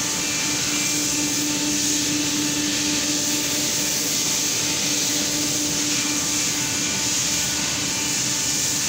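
Hot press machine running steadily: a constant motor hum with a whirring hiss, unchanging throughout.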